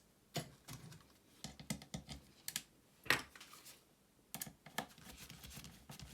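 Scattered light clicks and taps of small screws, a screwdriver and the plastic housing of a GHD Gold hair straightener being handled and screwed together, with one sharper click about three seconds in.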